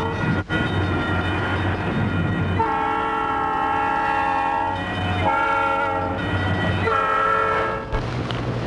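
Southern Pacific diesel locomotive horn sounding several chord blasts, a long one followed by two shorter ones, over the low rumble of the locomotives' diesel engines.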